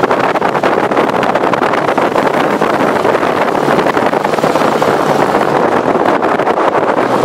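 Dune buggy engine running steadily as it drives over the sand, with wind buffeting the microphone.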